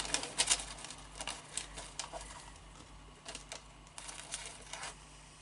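Scattered light clicks, taps and short rustles of beauty products and packing being handled in a subscription box, most frequent in the first second or so and thinning out afterwards.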